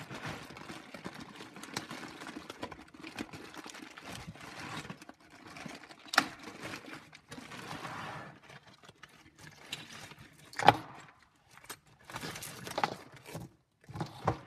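Clear plastic bag rustling and crinkling as it is opened, then a pile of costume jewelry (metal chains, beads, pendants) clattering and clinking as it is tipped out and handled on a table. The loudest is a single sharp clack about two-thirds of the way through.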